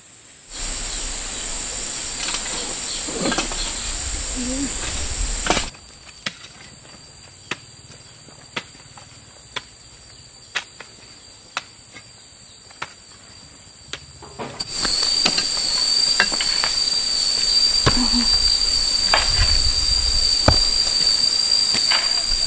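Insects, crickets or cicadas, chirring in a steady high-pitched drone that cuts in and out abruptly twice. In the quieter stretch between, sharp taps come about once a second.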